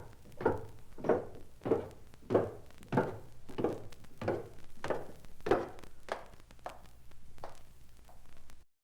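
An evenly paced series of single knocks or thuds, about one every 0.6 seconds, each with a short ring-out; the series cuts off abruptly near the end.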